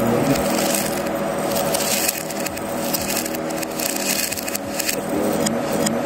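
Roasted sago pearls (sabudana) pouring from a plate into a plastic mixer-grinder jar, a continuous dense rattle of small hard beads hitting the plastic.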